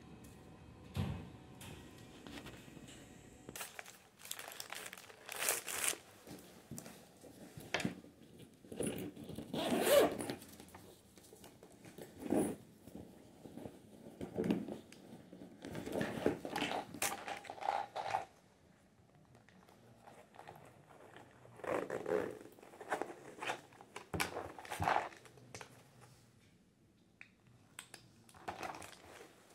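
Rummaging through a handbag: rustling, scraping and the clatter of items being shifted about, in irregular bursts with short pauses.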